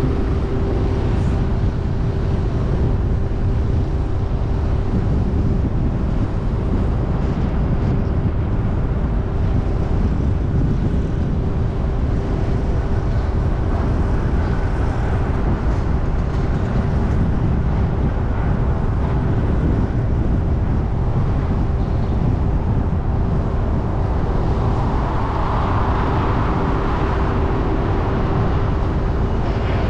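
A car driving on a city road: steady low rumble of road and engine noise with a constant hum running through it. A swell of noise builds in the last few seconds.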